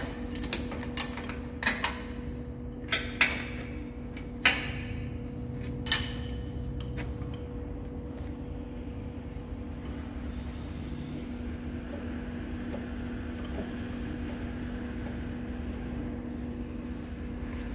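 A lathe tailstock being slid along the bed and positioned against the workpiece, giving about half a dozen sharp metal clunks and clinks over the first six seconds. A steady machine hum with a constant tone runs underneath.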